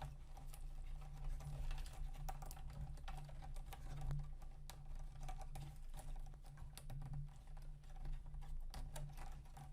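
Irregular small clicks and light rustling as cables and plastic printer parts are handled and pushed into place, over a steady low hum.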